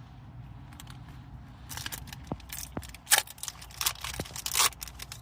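Trading-card pack wrapper and cards being handled: a run of sharp crinkles and scrapes that starts about a third of the way in, loudest just past the middle.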